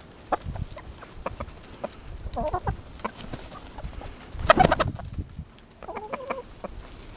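Chickens clucking close by in two short runs, among scattered small clicks and taps. A louder, brief noise comes about four and a half seconds in.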